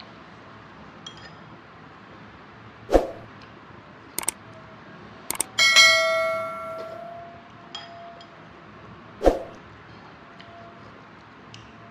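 Metal spoon clinking against a ceramic bowl of rice porridge. A few sharp taps come first, then just after halfway one strike rings out clearly and fades over about a second and a half. There are two louder short sounds, one about three seconds in and one near the end.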